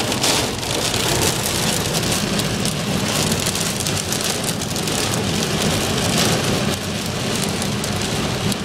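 Hail and heavy rain pelting a car's roof and windows, heard from inside the cabin: a dense, steady patter of countless small hits.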